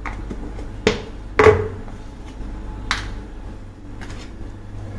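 A spoon knocking against a bowl while ginger-garlic paste is spooned into the masala: three sharp knocks, the loudest about one and a half seconds in with a brief ring, over a steady low hum.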